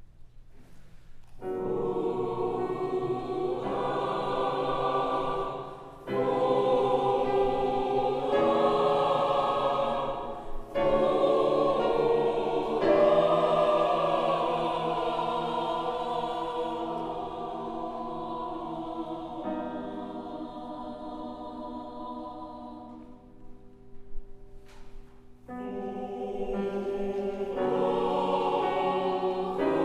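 Choir singing a sacred choral piece in sustained chords, phrase by phrase, with short breaks between phrases. It comes in about a second and a half in and drops to a hush for a couple of seconds near the end before swelling again.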